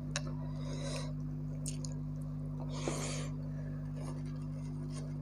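Hand-eating sounds: fingers squishing into soaked rice, with scattered soft smacks and clicks of chewing. The loudest comes about three seconds in. A steady low hum runs underneath.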